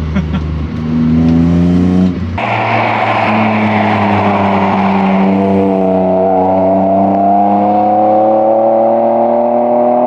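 BMW M52B28 2.8-litre straight-six accelerating hard through a custom exhaust. Its pitch climbs, breaks off and drops about two seconds in as at an upshift, then rises steadily through the next gear.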